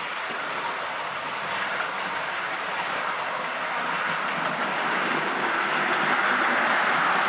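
Hornby 00 gauge LNER P2 model steam locomotive and its four coaches running along the track: the steady running noise of the model's motor and wheels on the rails, growing louder as the train approaches.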